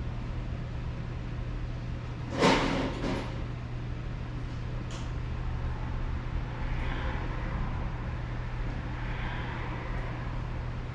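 Auto repair shop background: a steady low hum, with one short, loud burst of air hiss about two and a half seconds in and a smaller one just after.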